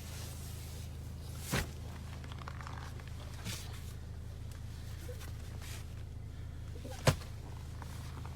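A steady low hum with a sharp knock about a second and a half in, a fainter one in the middle, and a louder knock near the end.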